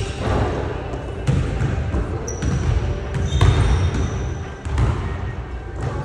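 A basketball bouncing on a hardwood gym floor during one-on-one play, hitting at uneven intervals of about once a second. Sneakers squeak briefly on the floor a couple of times near the middle.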